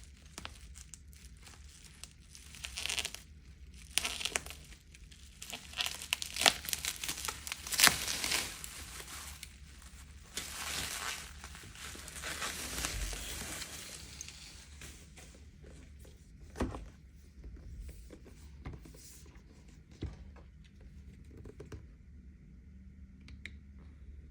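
Packaging crinkling and tearing as a parcel is unboxed by hand, with sharp crackles and clicks; it thins out about halfway through to a few isolated taps and rustles.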